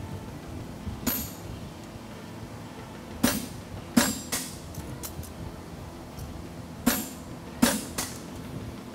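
Hammer blows on a handled punch driving nail holes into a red-hot steel horseshoe on the anvil. There are about seven sharp strikes in spaced groups of one to three, and the loudest come about four and seven and a half seconds in.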